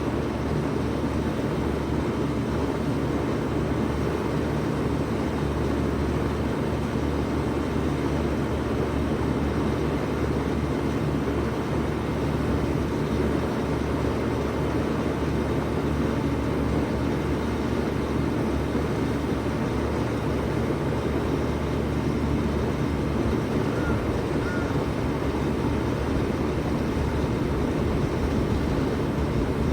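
1996 Bard 3-ton wall-hung heat pump running steadily in cooling mode: a low, even compressor hum under the rush of the fan.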